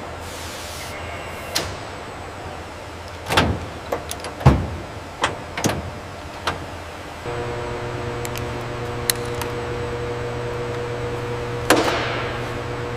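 Aircraft assembly-line machinery: scattered sharp metallic clicks and knocks over a steady mechanical hum. About seven seconds in, a machine starts up with a steady hum of several held tones, and there is one sharp hit near the end.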